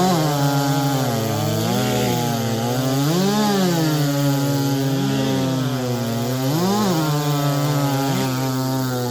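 Big-bore racing chainsaws (over 90cc class) running flat out through a log in a timed cut. The engine note holds steady, with its pitch swelling up and falling back several times.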